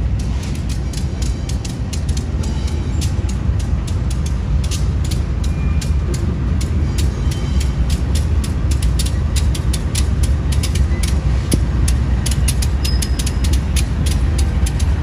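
Freight train rolling past: a steady low rumble with a rapid, uneven run of sharp wheel clicks over the rail joints.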